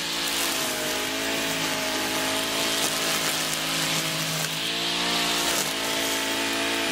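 Shoulder-strap brush cutter with a nylon-line trimmer head running at cutting speed as the line whips through grass. The engine pitch dips briefly about half a second in and again about four and a half seconds in, then picks back up.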